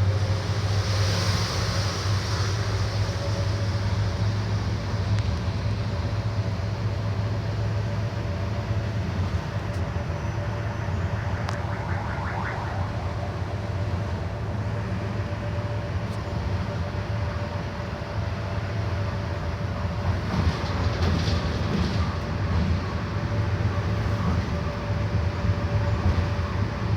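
Mercedes-Benz OF 1721 Euro 6 bus engine running steadily under way, a deep drone with a steady whine over it, and brief hisses and rattles near the start, about halfway through and around two-thirds of the way in.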